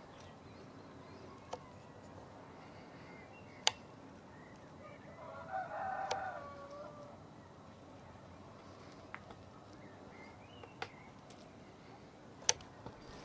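A rooster crowing once, about five seconds in, the call lasting about two seconds. Several sharp clicks are heard; the loudest come near four seconds and near the end.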